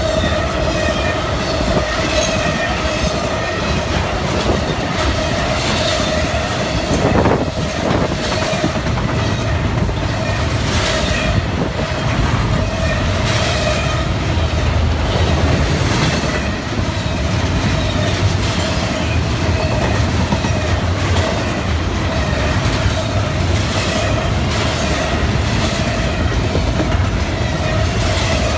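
Double-stack intermodal freight cars rolling past close by, wheels clacking over the rail joints in a steady run of clatter. A steady high tone runs underneath.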